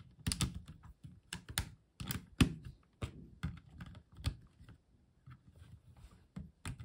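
Plastic Lego bricks clicking and knocking as pieces of a small car model are pulled off and pressed back on by hand: a quick run of sharp clicks, thinning out after about four seconds.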